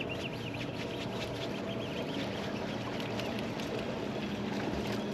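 Steady low hum of a boat motor, with a run of short high chirps over it.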